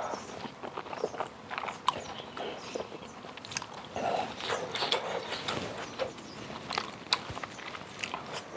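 Close-miked eating of clam kalguksu and fresh kimchi: wet chewing and biting, with many small clicks and crunches scattered through.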